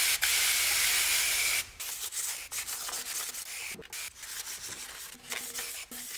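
A hand pump sprayer mists water onto the panel in one steady hiss lasting nearly two seconds. Then 1500-grit wet-sanding paper on a sanding block rubs back and forth over wet painted sheet metal in irregular strokes, wearing down the edge of a spray-paint blend.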